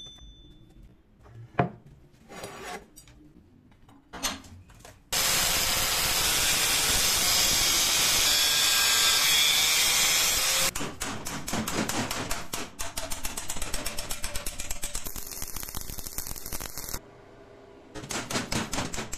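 A few light knocks of steel stock being handled, then an angle grinder's cut-off disc cutting through steel flat bar, a loud steady run of about five seconds starting some five seconds in. After it stops come several seconds of fast, uneven strokes on the metal, and another short run of quick strokes near the end.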